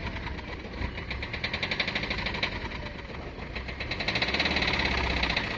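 Maruti Swift Dzire engine idling with a rapid, even knocking clatter, the abnormal engine noise that the mechanic puts down to a faulty injector; one injector nozzle was found to have failed.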